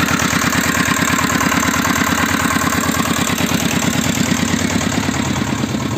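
Homemade tractor's Lifan 6.5 hp single-cylinder engine running steadily with an even, rapid putter as the tractor drives along.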